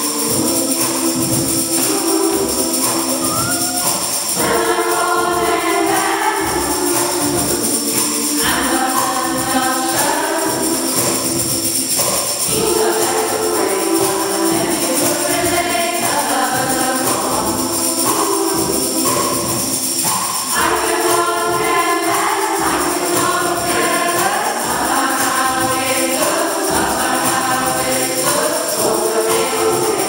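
Large mixed community choir singing in harmony, many voices together in phrases of a few seconds, in a church's reverberant space.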